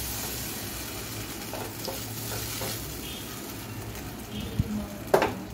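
Potato pieces and spice paste sizzling in a frying pan with water just poured in, while a wooden spatula stirs and scrapes through them; the sizzle eases a little, and there is a sharp knock about five seconds in.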